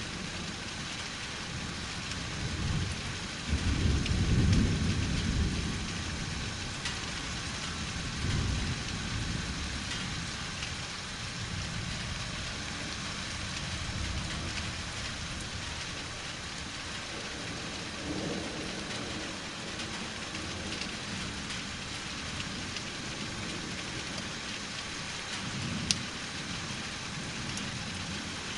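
Steady rain falling during a thunderstorm, with several rolls of thunder: a long low rumble about four seconds in is the loudest, and fainter rumbles follow later.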